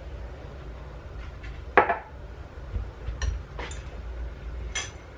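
Kitchen dishes and utensils being handled: a loud knock of something set down, then three sharp, briefly ringing clinks.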